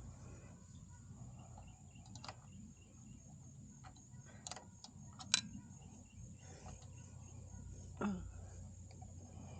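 Scattered light clicks and taps of hand tools and small metal parts while a motorcycle kickstand switch is being fitted, the sharpest click about five seconds in.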